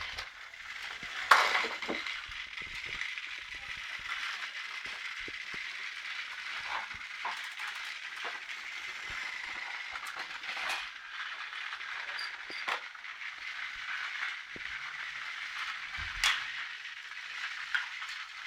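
Several motorized toy trains running around a toy track: a steady whirring rattle of small motors and wheels, with scattered clicks and knocks, the loudest about a second in and again near the end.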